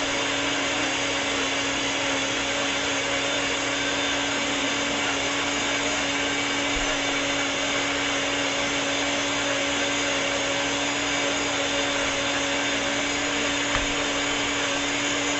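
Electric countertop blender running steadily at one speed, its motor giving a constant hum under a whir.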